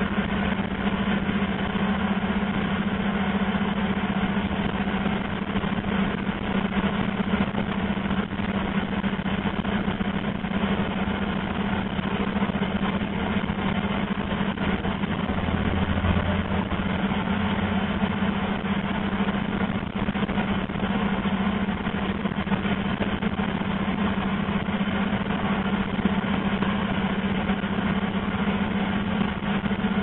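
Fibre-optic cable blowing rig running steadily on its compressed-air supply, a constant engine-like drone with a strong low hum, while cable is blown into sub-duct. A deeper hum swells briefly about halfway through.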